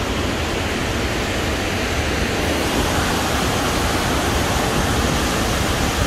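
Burney Falls, a large waterfall, rushing: a steady, even wash of falling water with no breaks.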